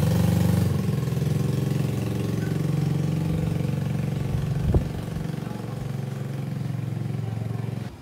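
An engine running steadily, with one sharp knock about halfway through; the sound cuts off abruptly near the end.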